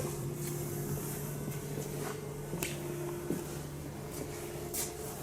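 BURNiT Vision pellet fireplace running, a steady low mechanical hum with two held tones, and a few faint clicks.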